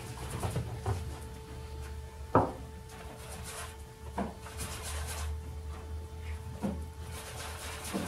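A few soft knocks and light rubbing from oil-painting brushes and tools being handled at an easel, the loudest knock about two and a half seconds in, over a steady faint hum.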